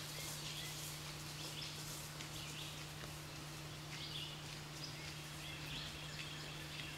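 Faint outdoor woodland ambience with small birds chirping briefly now and then, over a steady low hum.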